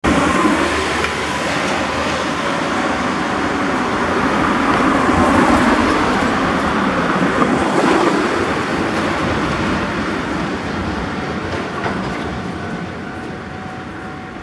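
Road traffic passing close on a narrow street: a light truck's engine and tyres build to their loudest about eight seconds in, then fade away.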